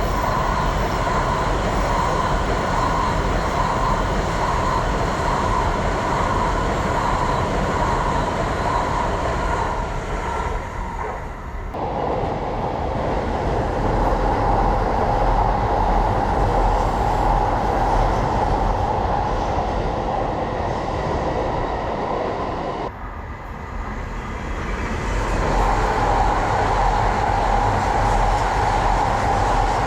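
Trains running past on the tracks below: a steady rumble with a high whine over it. The sound changes abruptly twice, about a third and two thirds of the way through.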